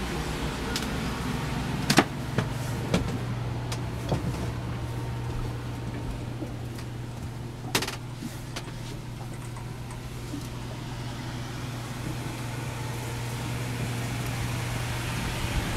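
A steady low mechanical hum, with several sharp knocks about two to four seconds in and one more near the middle.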